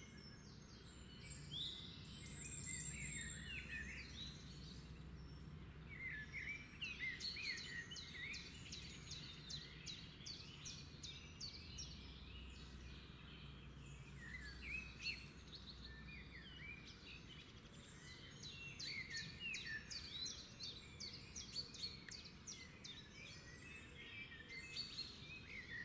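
Faint birds chirping and twittering in the background, in bouts of quick rising and falling notes, over a faint steady low hum.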